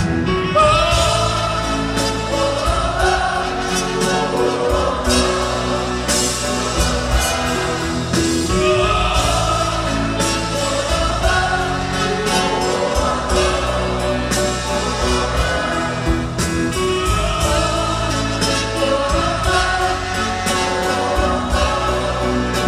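Live band playing a ballad while many voices sing a wordless "oh, oh" refrain, with drum hits keeping a steady beat.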